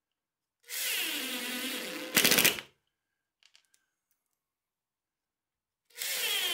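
Makita cordless impact driver driving screws to fasten metal drawer slides to a plywood cabinet side. The motor runs up and drops in pitch as the screw bites, then hammers rapidly for about half a second as it seats. A second screw starts near the end.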